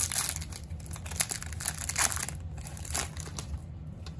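Foil-lined trading-card pack wrapper crinkling in a run of sharp crackles as it is torn open and the cards are pulled out, dying away about three and a half seconds in.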